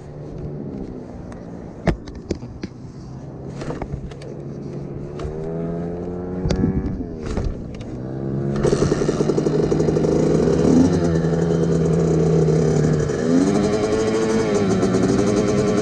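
Small kick-start motorbike engine running and being revved up and down as the rider works the throttle and clutch to pull away, with a few sharp clicks early on. About halfway through it gets clearly louder as the revs are held higher.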